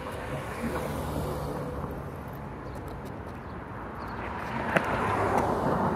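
Road traffic: cars going by on the street, a swell of tyre and engine noise near the start and another building toward the end, with a single sharp click in between.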